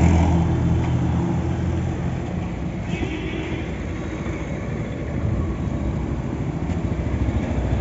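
A car engine idling close by, a steady low hum that eases off slightly about two and a half seconds in.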